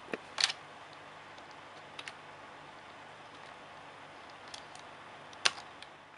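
Computer keyboard keys pressed one at a time: several separate sharp clicks spread out, the loudest about half a second in and about five and a half seconds in, over a steady hiss.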